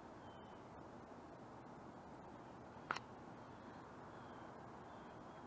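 Faint steady outdoor background noise picked up by an action camera's built-in microphone, with one short sharp click about three seconds in.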